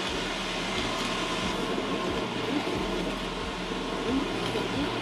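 Steady rumble of a vehicle running, its engine and road noise heard with faint, irregular low thuds.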